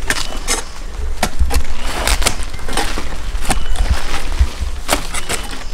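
Irregular snapping, rustling and knocking of leaves, stems and soil as arrowroot plants are dug up and handled, over a low rumble on the microphone.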